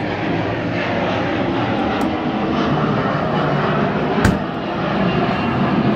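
The rear storage compartment lid of an Alfa Romeo 4C is closed about four seconds in with one sharp thud. It sits over a steady, loud low background noise.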